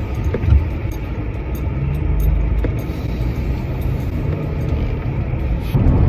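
Steady low rumble of a car in motion heard from inside the cabin: engine and road noise while driving at speed.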